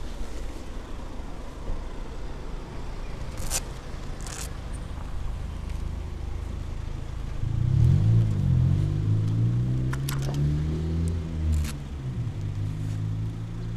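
A car drives slowly past close by, its engine louder and its pitch rising and falling from about halfway through, over a steady low rumble. A few sharp clicks and rustles are heard.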